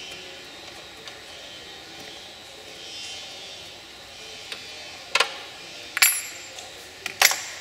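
Three sharp metal clinks about a second apart, over a faint steady hiss, from metal parts being handled while a pickup truck's engine computer is freed from its firewall mount.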